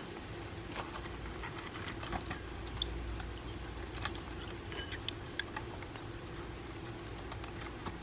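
Scattered light clicks and taps of utensils against plates during a meal, over a steady low hum.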